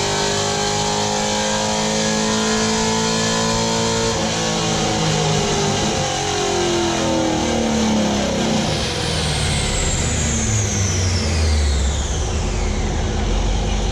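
Car engine with a freshly installed Texas Speed 224R camshaft, pulling up through the revs for about four seconds, then the revs falling steadily, with a high whine sliding down in pitch toward the end.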